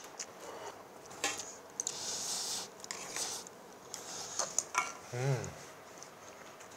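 Instant ramen being eaten: chopsticks clicking against metal ramen pots and noodles slurped, with a short voiced 'mm' from one eater a little past five seconds in.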